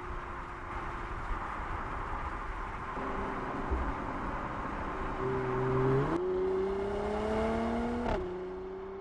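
Mercedes-AMG GLC 43's 3.0-litre biturbo V6 under way, its engine note steady at first beneath road and tyre noise. About six seconds in the revs rise, drop suddenly at an automatic upshift near the end, then climb again.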